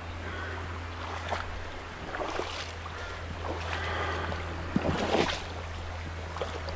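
Shallow river water running, with irregular splashes from a wild brown trout thrashing in a landing net held in the water; the biggest splash comes about five seconds in. A steady low hum runs underneath.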